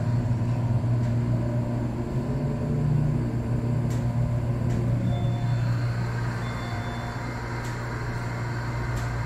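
Steady low rumble of a subway train running, with a few light clicks and two brief high tones in the middle.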